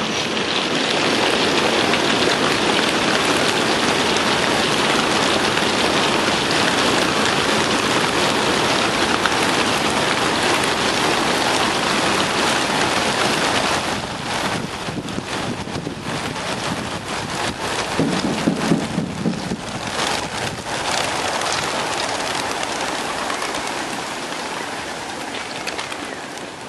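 A mass release of racing pigeons from a transporter truck's crates: the wings of the whole flock flap together in a loud, dense rushing clatter like heavy rain. About halfway through it breaks up into scattered flutters and then fades as the birds fly off.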